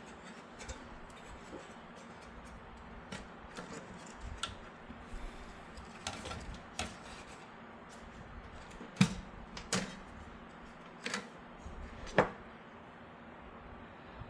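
Scattered light clicks and taps of a PCIe riser cable mount being handled and test-fitted against a PC case's mounting holes, the loudest few coming between about nine and twelve seconds in.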